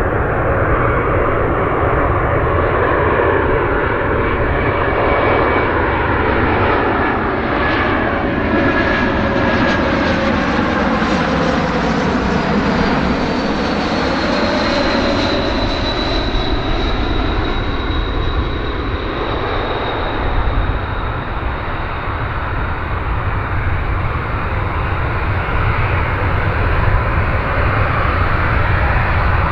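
Arriving airliner on approach passing by, its engine noise steady throughout, with a high whine that drops in pitch as it goes past about halfway through.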